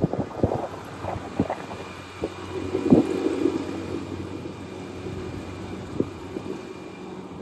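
Skiff's outboard motor running steadily at low speed, with several sharp knocks in the first three seconds and another about six seconds in.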